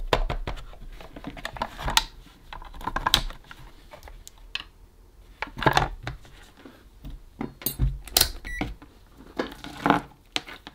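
Scattered clicks and knocks of handling: the opened plastic speaker housing and a power lead being moved on a silicone work mat, and the lead's DC plug pushed into its socket. A short electronic beep, as from a digital multimeter, about eight seconds in.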